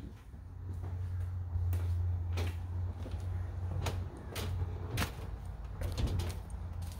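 A person stepping out of a travel trailer: a series of sharp knocks and clunks from the trailer door and entry steps, then footsteps, over a steady low rumble.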